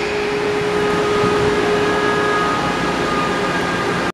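An electric high-speed train at a station platform: a steady hum and rushing noise, with a faint steady whine that fades about halfway through.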